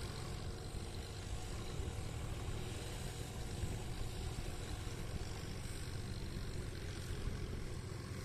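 Sonalika DI-47 RX Sikandar tractor's diesel engine running steadily under load while driving a 6-foot rotavator through a wet paddy field, heard as a steady drone. Its note is slightly different from the smoother-sounding standard DI-47 RX.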